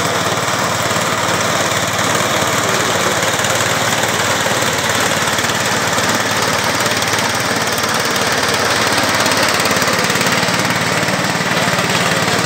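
Engine of a small ride-on grass-cutting tractor running steadily and loud while it mows tall grass with its front cutter bar.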